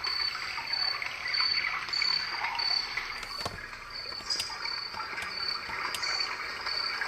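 A recorded babbling-stream track playing from the Roffie white noise sound machine's small speaker: a steady trickle of running water, with a high pip repeating about every two-thirds of a second.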